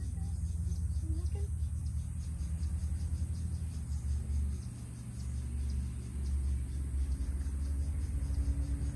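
Low, uneven rumble of wind buffeting the microphone, wavering in strength with a brief lull about five seconds in.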